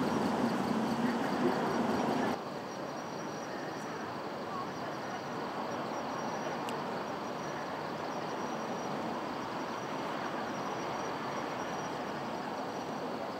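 Outdoor street ambience. A passing vehicle's noise fades during the first couple of seconds and cuts off abruptly. It is followed by a steady low wash of background noise with faint, high insect chirping.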